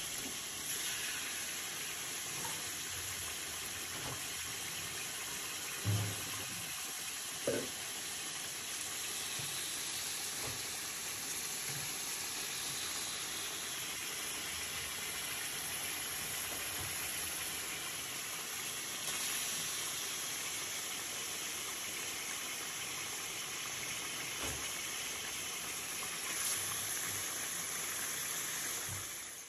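Beef chunks, just added to hot oil with onion, ginger-garlic paste and whole spices, sizzling steadily in a metal pot. Two soft knocks come about six and seven and a half seconds in.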